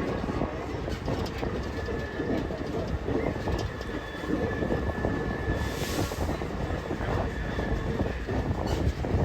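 Excursion passenger train running on the rails, heard from aboard: a steady rumble with wheel clatter. A faint thin squeal sounds from about one and a half seconds in until about six seconds in.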